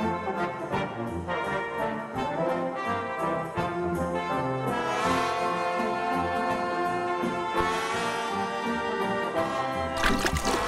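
Instrumental background music: sustained melodic notes over a steady beat. Near the end it gives way abruptly to an even outdoor noise.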